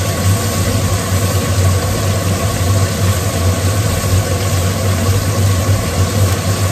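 Kitchen range hood fan running with a steady low hum and an even rush of air.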